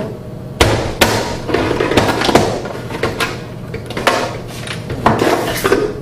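A series of sharp, irregular metal knocks on a metal electrical box as a stubborn knockout is struck out of its side.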